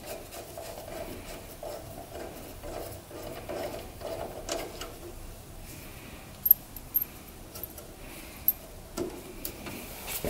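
Hands handling small metal brake parts at a caliper: light rubbing and fumbling, then several sharp little metallic clicks and clinks in the second half.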